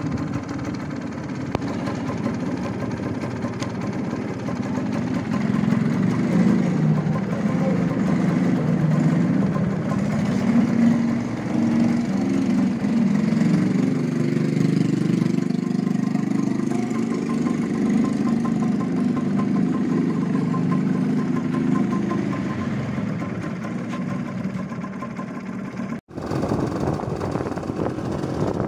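Suzuki TS 125's two-stroke single-cylinder engine idling steadily while the bike stands. About 26 seconds in the sound cuts off abruptly and switches to the engine running under way with the bike being ridden.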